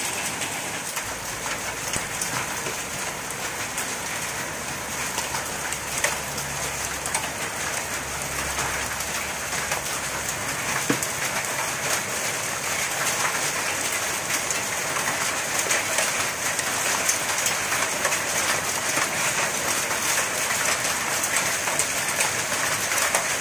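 Heavy rain mixed with small hail: a steady hiss of falling water with scattered sharp ticks, growing a little louder in the second half. A low rumble runs underneath during the first half.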